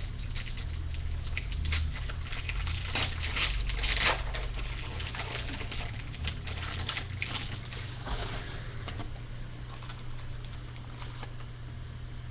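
A foil-lined 2015 Bowman baseball card pack wrapper being torn open and crinkled by hand: a dense crackling, loudest a few seconds in, that dies down after about nine seconds.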